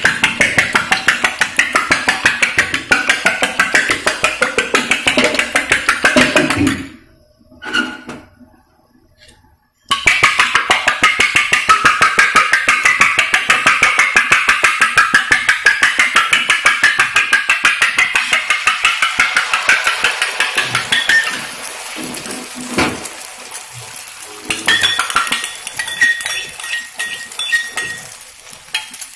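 A metal spoon rapidly beating eggs in a small steel pan, clinking against the metal in a fast, steady rhythm, with a break of a few seconds early on. The beating stops about three-quarters of the way through, giving way to quieter scattered sounds as the egg goes onto the hot griddle.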